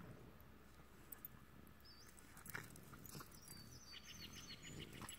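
Near-silent outdoor ambience: faint birds chirping high up, with a few soft taps and rustles from the dogs moving on the grass.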